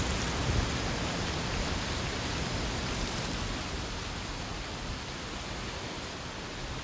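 Strong wind blowing through autumn trees, with dry leaves rustling and blowing: a steady rushing hiss that eases slightly toward the end.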